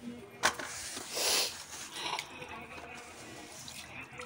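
Rubber floor squeegee (wiper) being pushed across a wet tiled floor, scraping water along, with a louder swish about a second in and a few light knocks of the blade.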